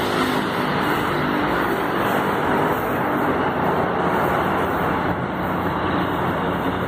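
Steady rumble of passing vehicles, a loud unbroken noise with a faint low hum.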